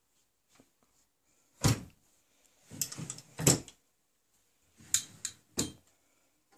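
Small wooden doors and a drawer of a handmade wooden writing desk being closed and opened by hand, giving sharp wooden knocks: one loud knock about a second and a half in, a quick cluster of knocks around three seconds, and two more near the end.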